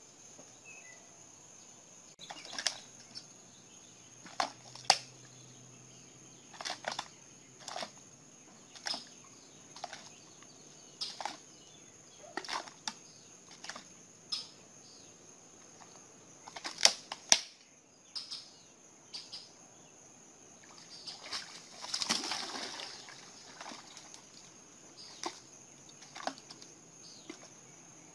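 An alligator's jaws crunching and cracking on prey: a string of sharp, irregular cracks about once a second, with a longer wet crunch about two-thirds of the way through. Insects buzz steadily at a high pitch behind it.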